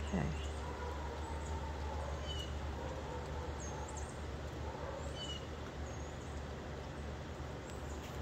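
Quiet outdoor background: a steady low rumble with a few faint, short bird chirps scattered through it.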